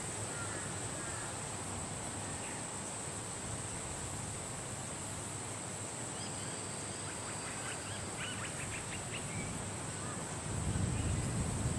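Nature ambience of wind and birds: a steady high-pitched insect drone, with birds chirping, including a quick run of short notes a little past the middle. Low wind rumble rises near the end.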